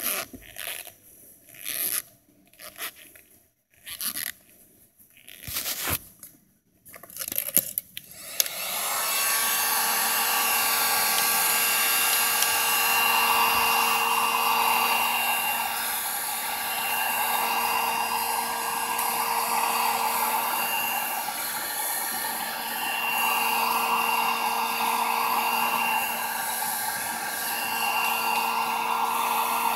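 Gloved hands rubbing and handling a garden hose and its fitting in short bursts, then about eight seconds in an electric heat gun switches on and runs steadily, its fan blowing with a steady whine. It is heating the hose end to soften the stiff hose.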